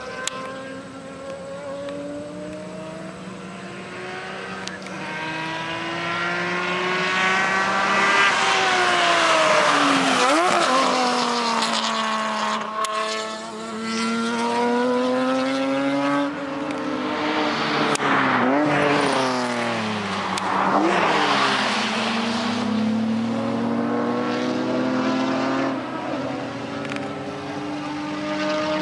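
Track-built older Porsche Carrera race car engine accelerating hard through the gears. Its pitch climbs and drops at each upshift, and it swells loudest as the car passes, then fades and returns as it laps.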